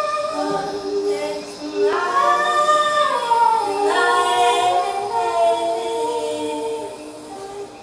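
A woman singing long wordless notes that slide between pitches.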